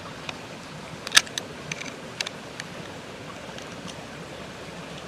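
A few light clicks and taps from handling the mini chainsaw and its small adjusting wrench, the sharpest about a second in, over a steady background hiss.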